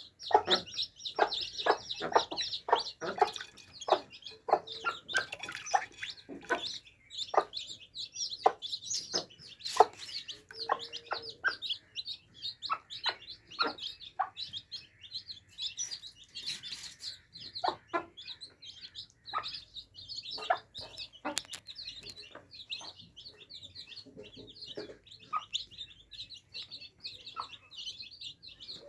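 A group of baby chicks peeping continuously in high, rapid chirps. Short sharp low sounds, either pecks or clucks, come thick and fast for the first several seconds, then more sparsely.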